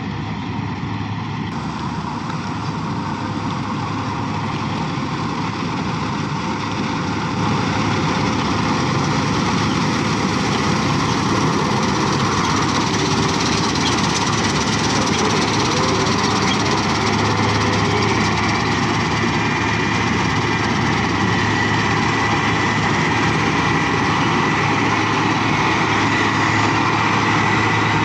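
New Holland 8060 combine harvester running steadily while harvesting rice, its engine and machinery making a continuous mechanical din that steps up in loudness about seven seconds in and stays there.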